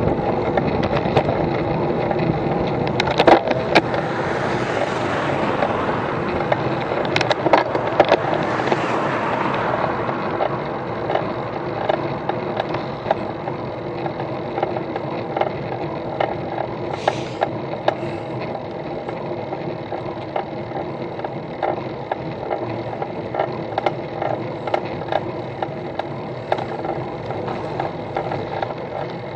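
Bicycle rolling along a tarmac road, heard through a bike-mounted camera: steady tyre and road noise with the mount rattling and sharp knocks over bumps. A louder rushing noise swells for several seconds about three seconds in.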